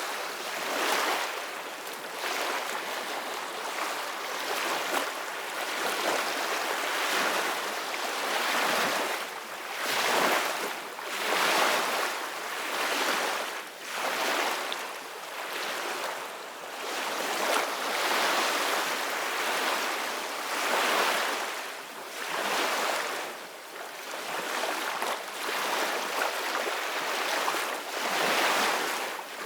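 Sea waves washing and breaking in a continuous rolling surge, swelling and falling every few seconds.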